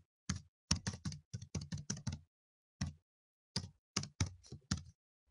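Computer keyboard keys clicking in quick, irregular runs as a line of text is typed. A short pause comes near the middle, and the typing stops shortly before the end.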